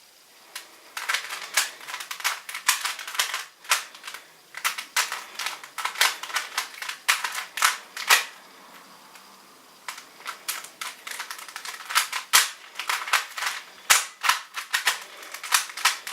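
Rubik's Cube being turned fast, its plastic layers clicking in quick runs of turns, with a pause of about two seconds near the middle: the final turns of a solve.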